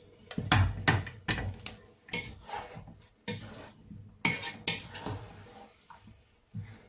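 A wooden spatula stirring diced vegetables in a granite-coated frying pan: a run of irregular scrapes and knocks against the pan, loudest about half a second to a second in and again just after four seconds.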